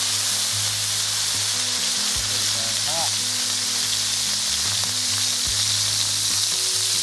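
Squeeze butter sizzling hard in a very hot cast-iron skillet, a loud steady hiss as it hits the pan and throws up smoke, with low background music underneath.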